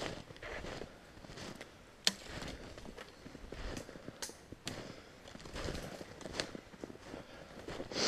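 Footsteps crunching through snow at a steady walking pace, with a few sharp twig snaps along the way.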